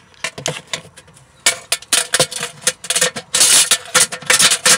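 Steel tape measure blade scraping and clattering against the MDF walls inside a subwoofer box port as it is pushed in, with irregular clicks and knocks from handling. A longer scrape comes about three and a half seconds in.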